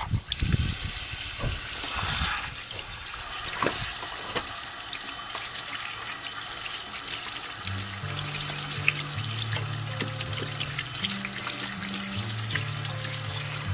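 Water running from a tap and splashing steadily, with background music whose low notes come in about eight seconds in.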